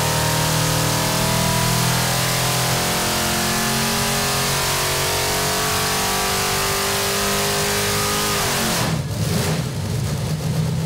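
427 cubic-inch small-block Chevrolet stroker V8 running at high rpm under load on an engine dyno during a power pull. A little after eight seconds the throttle closes, the engine note falls away and it settles to a lumpy idle from its Comp Cams Thumper camshaft.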